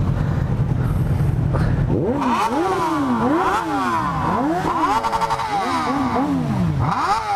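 Four-cylinder sport motorcycle engine idling, then from about two seconds in revved over and over, the pitch climbing and dropping about once a second: throttle blipping to make noise while stopped.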